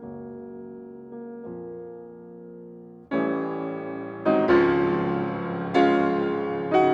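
Background piano music: soft held chords, then from about three seconds in, louder chords struck roughly once a second.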